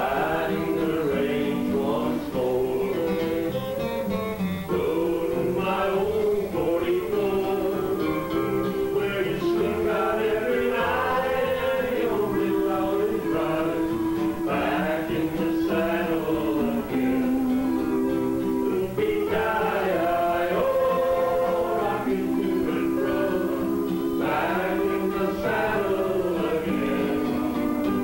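A country-western band playing a song live, with singing over acoustic guitar and upright bass.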